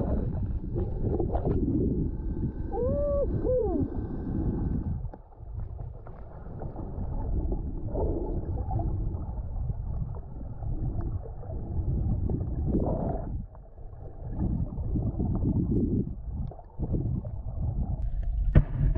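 Muffled underwater rumble and sloshing of water picked up by a hand-held GoPro in its waterproof housing while snorkelling, rising and falling unevenly. About three seconds in, a short muffled tone glides up and back down.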